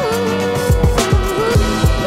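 Background music with a steady beat and a lead melody line that slides in pitch.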